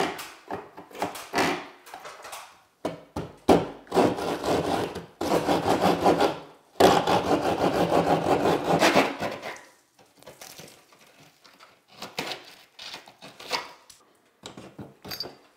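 A hand drywall saw cuts through ceiling drywall in quick back-and-forth strokes, for several seconds in the middle. Scattered knocks and handling noise come before and after.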